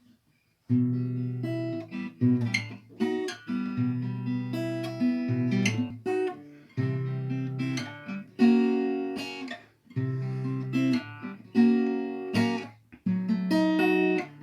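Acoustic guitar playing a chord sequence, the instrumental introduction of a song, starting about a second in; each chord rings and fades as the next comes in.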